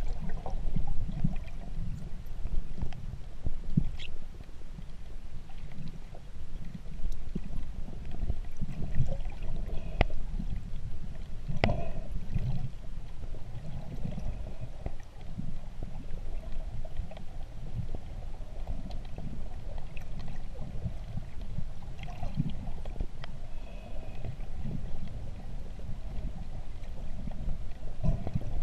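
Muffled underwater sound picked up by a camera in a waterproof housing while the diver swims: a low, uneven rumble of water moving past, with a few sharp clicks.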